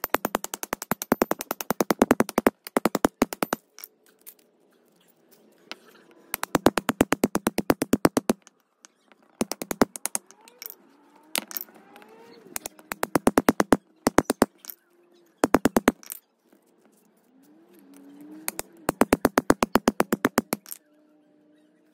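Metal-on-metal strikes from a hammer driving a hatchet through the steel cores of washing-machine motor stators to cut out the copper windings. The strikes come very fast, about ten a second, in bursts of one to three seconds with short pauses between.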